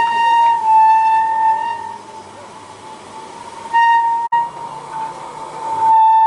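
A steady, high-pitched whistle holding one note. It weakens for a couple of seconds midway, breaks off for an instant, and comes back loud near the end.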